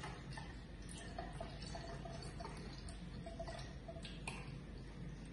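Evaporated milk being poured in a thin stream into a measuring jug of milk: a soft trickle with small drips and clicks.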